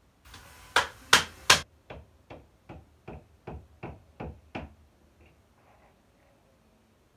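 Hard tapping on a tiled mosaic panel: three loud knocks in quick succession over a brief hiss, then eight lighter, evenly spaced taps at about two and a half a second.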